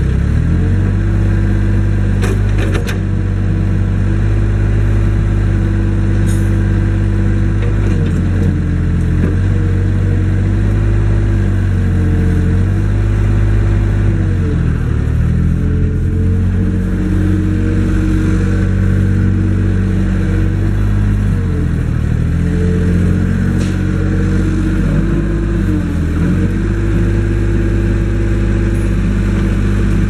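Kobelco SK042 mini excavator's diesel engine running steadily as the boom, bucket and swing are worked. Its note sags and recovers several times as the hydraulics take load, with a few brief clicks.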